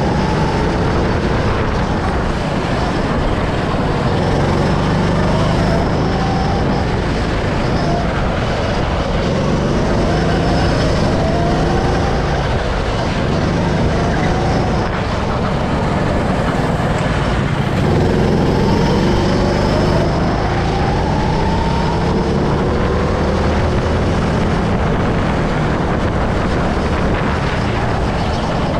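Go-kart running flat out on a track, its pitch climbing repeatedly as it accelerates down the straights and falling away into the corners, over a steady rush of road and wind noise.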